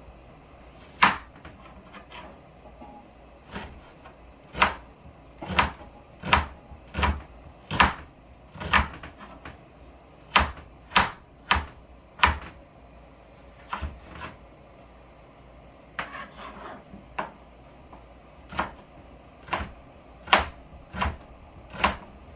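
Kitchen knife chopping onion and celery on a cutting board: sharp, irregular strokes about one every half-second to a second, with a few short pauses.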